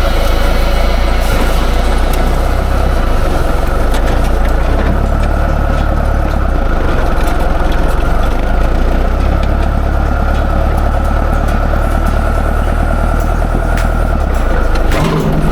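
Heavy diesel engine of a construction machine or truck running steadily with a deep, even rumble.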